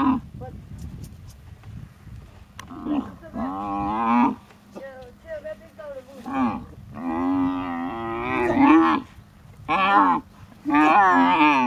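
Camel groaning in a run of loud, pitched calls, the longest lasting about two seconds, as it protests at being made to sit down to have its saddle removed.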